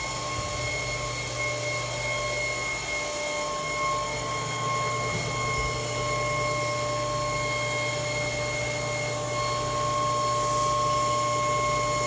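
Steady hum of running industrial machinery, with a constant high-pitched whine over a low drone, typical of a thermoforming machine's fans and motors running.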